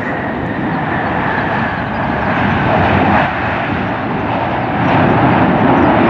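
Boeing 777 twin-jet airliner's GE90 engines running during the landing rollout just after touchdown, spoilers up as it slows on the runway. It is a continuous jet rush and rumble that grows slowly louder.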